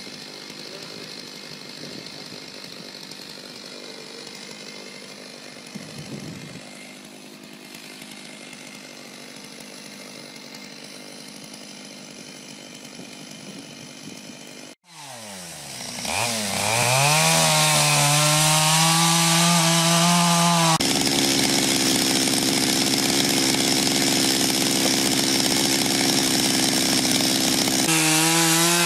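Chainsaw engine running softly at first. After a sudden break about halfway, it revs up and runs loud and high at full throttle, cutting into wood.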